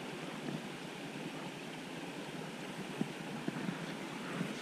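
Steady outdoor background noise, with two faint ticks about three seconds in.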